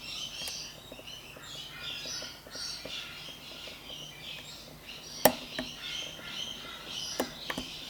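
Lock picking in a Lockwood 334 padlock: a few sharp metal clicks from the pick and pins, the loudest about five seconds in and two more near the end. Birds chirp steadily in the background.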